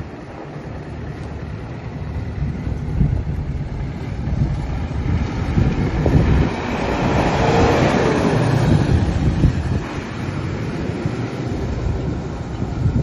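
Landini Powerfarm 100 tractor's diesel engine running as the tractor drives past, getting louder as it comes close about halfway through, then fading as it pulls away.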